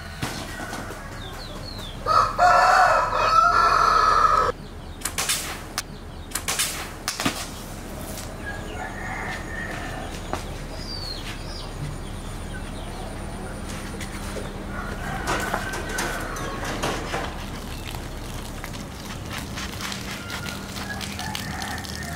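A rooster crows once, one long call of about two seconds starting a couple of seconds in. A few sharp clicks follow, and a small bird chirps faintly later over a steady low hum.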